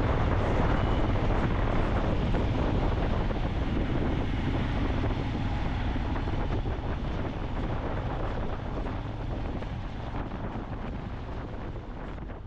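Wind buffeting the microphone: a heavy, even rumble with hiss above it, slowly fading.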